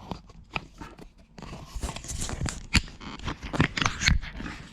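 Close handling noise: rustling and scraping, dense with sharp clicks and knocks, from about a second and a half in, after a few scattered clicks.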